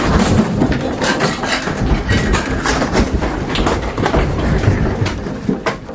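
Shelves, furniture and loose objects rattling and clattering over a low rumble as a strong earthquake shakes the room, with many short knocks all through.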